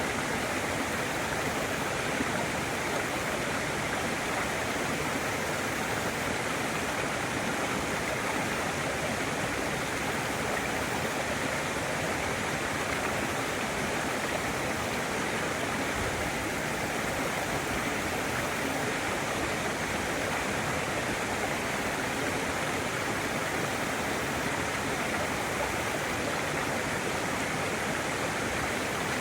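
Waterfall: water falling and rushing without a break, a steady wash of noise.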